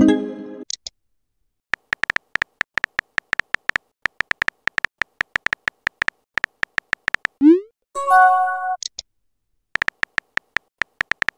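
Texting-app sound effects: a rapid run of keyboard-tap clicks as a message is typed letter by letter, then a quick rising swoosh as it sends, followed by a short chime of a few steady tones. The tapping clicks start again near the end.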